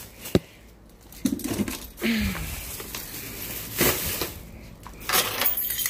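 Household handling noises: rustling, crinkling and clicks as a bag and small items are handled and set down, with a sharp click under half a second in. Two short low voice-like sounds, the second falling in pitch, come about one and two seconds in.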